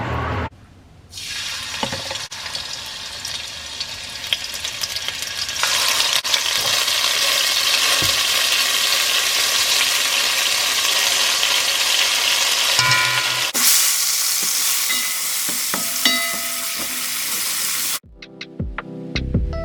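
Food frying and sizzling in a hot pan, in a few short clips joined by abrupt cuts; the sizzle cuts off near the end.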